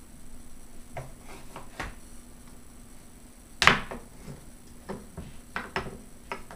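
Wooden puzzle pieces knocking and clacking against a wooden inset puzzle board and tabletop as they are handled and fitted in: a scatter of short knocks, the loudest a little past halfway.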